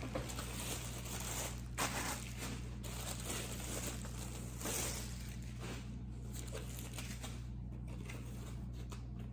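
Clear plastic bag wrapping crinkling and rustling as a boot is handled and pulled out of it, with a couple of sharper rustles.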